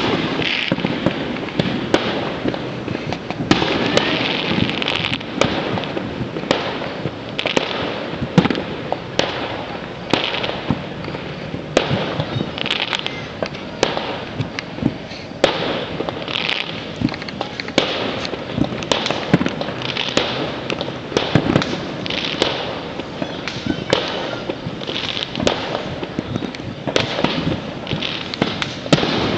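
Many fireworks going off at once across a neighbourhood: an unbroken, irregular run of sharp bangs and pops, often less than a second apart.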